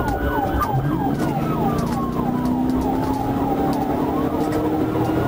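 Police patrol car siren in a rapid yelp, about three whoops a second, heard from inside the pursuing car. Under it the car's engine note rises steadily as it accelerates.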